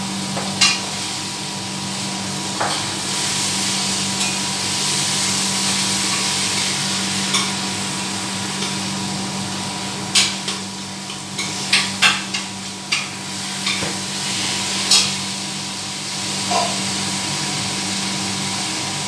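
Steady fan hum with scattered sharp knocks and clatter of a utensil against a pan as a curry cooking on the stove is stirred, most of them about ten to fifteen seconds in.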